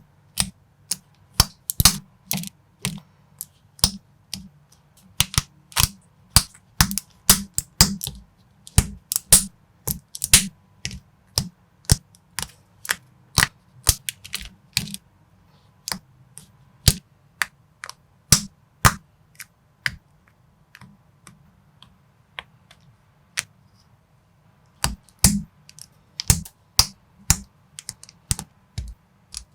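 Lego-compatible plastic building bricks being handled and pressed together: a quick, irregular run of sharp clicks, thinning out to a few-second pause about two-thirds of the way through before picking up again.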